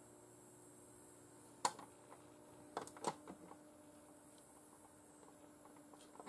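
Faint steady hum of the Hover Pilder model's small propeller motor running, with one propeller not turning. Three sharp plastic clicks as the model is handled, about a second and a half in and twice just before three seconds.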